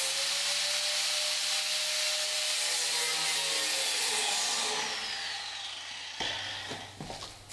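Power tool grinding sheet steel, trimming a patch piece to fit, with a steady rasping hiss. About three seconds in it is let off, and its high whine falls in pitch as it winds down.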